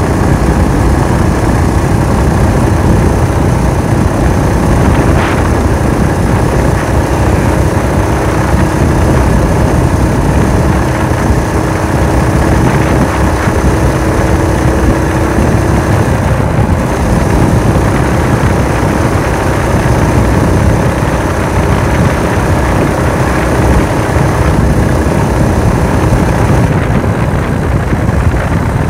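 Small single-cylinder engine of a motorized-bicycle chopper running steadily under way, with wind rushing over the microphone.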